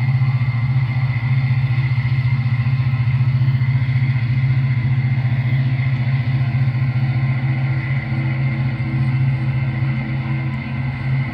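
HO scale model diesel locomotives running on the layout track: a steady low hum with a thin, steady high whine above it.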